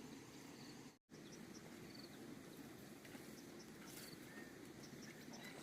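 Faint rural outdoor ambience with a few short, high chirps, cut by a brief total dropout to silence about a second in.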